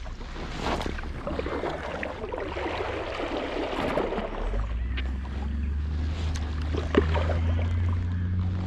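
Kayak paddle strokes dipping and splashing, with water lapping and dripping against the kayak's hull and scattered small splashes and knocks. A low steady rumble joins about halfway through.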